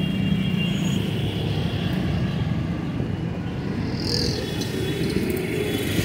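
Street traffic ambience: a steady low rumble of passing vehicles, with a brief high-pitched squeak about four seconds in.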